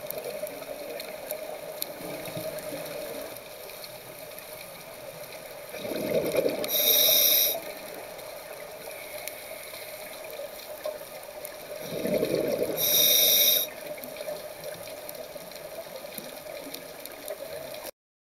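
Scuba diver breathing through a regulator, heard underwater: two breaths about six seconds apart, each a loud rush of exhaled bubbles, over a steady hum. The sound cuts off abruptly just before the end.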